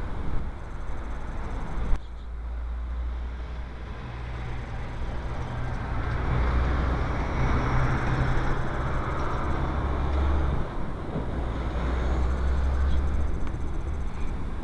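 Road noise inside a moving car's cabin: a steady low rumble of engine and tyres under a broad hiss that grows louder toward the middle. There is one sharp click about two seconds in.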